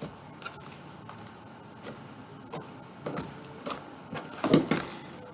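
Homemade slime with modeling clay worked into it, being kneaded and stretched by hand: irregular small wet clicks and squelches, with a few louder squishes in the second half.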